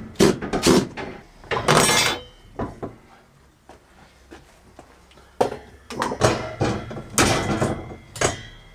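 Knocks, clatters and rattles of a white wire shelf and its metal wall brackets being handled and taken down, in two bunches with a quieter stretch in the middle.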